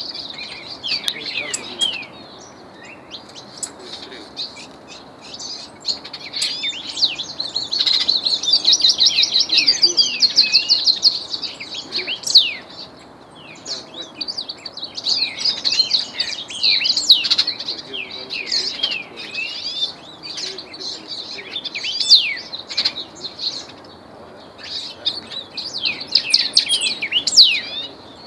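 Songbirds singing a fast, chattering, warbling song in long phrases with short pauses, with a long run of rapidly repeated trill notes about eight seconds in.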